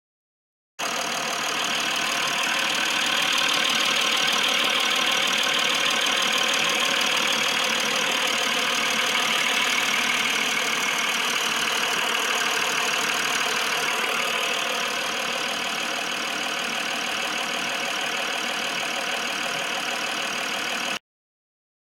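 Mercedes-Benz S350 BlueTEC's 3.0-litre V6 diesel engine idling steadily, cutting in abruptly about a second in and cutting off just before the end.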